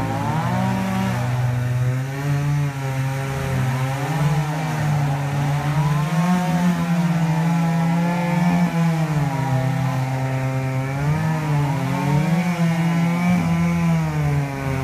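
Two chainsaws running at the same time, cutting into the thick trunk of an old mango tree. Their engine notes rise and fall, crossing each other, as each saw revs up and then slows under load in the cut.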